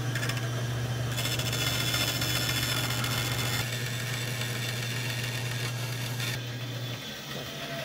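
Bandsaw running with a steady motor hum while its blade cuts through a wooden board; the higher cutting noise eases off near the end.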